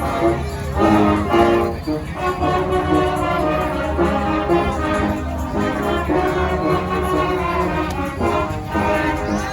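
Music played by brass instruments: a run of held notes over a steady bass line.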